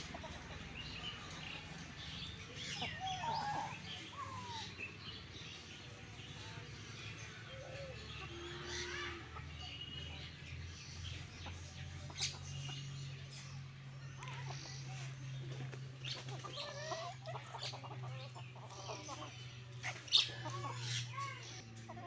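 Free-range chickens clucking in short, scattered calls as they forage and peck at feed on the ground, with a few sharp clicks among them.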